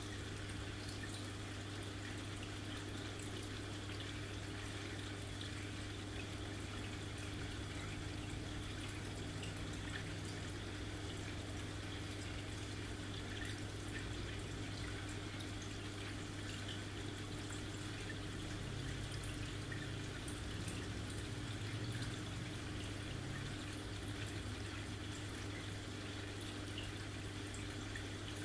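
Aquarium filter running: a steady low hum with water trickling and dripping.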